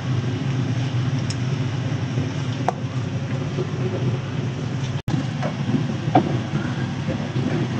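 Kitchen extractor hood fan running with a steady hum, with a few light clicks of a utensil against cookware. The sound cuts out for an instant about five seconds in.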